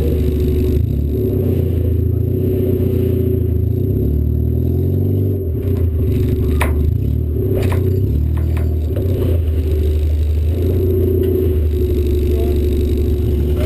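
1988 Honda Civic demolition car's engine running, heard from inside the stripped cab as a steady low drone. Its pitch sweeps up and back down about four to five seconds in, and a few sharp knocks or rattles come around seven to eight seconds.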